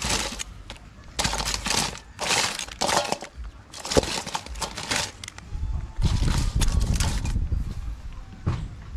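Raw blue crabs rustling and clattering against a stainless steel bowl as they are stirred with a knife, while a packet of curry seasoning crinkles, in irregular bursts with a sharp click about four seconds in.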